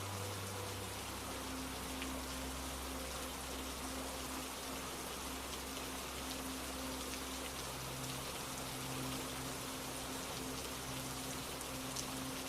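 Steady rain falling, an even hiss with scattered droplet ticks, over a few soft, low, sustained tones that shift slowly.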